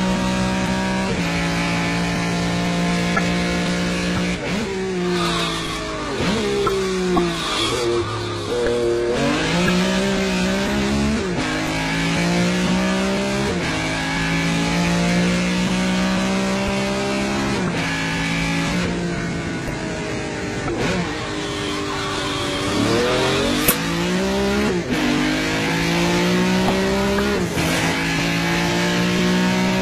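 Ferrari 275 GTB's V12 engine driven hard at high revs, its pitch climbing in each gear and dropping at each upshift. Twice, about five and about twenty-two seconds in, the revs fall sharply through downshifts and then climb again as it accelerates away.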